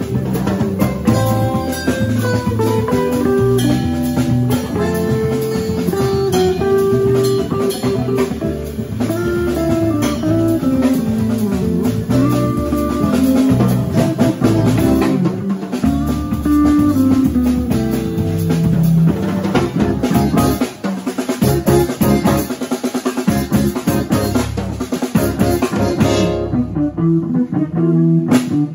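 Live instrumental jazz band playing: electric and acoustic guitars over a drum kit and electric bass, with an electric keyboard.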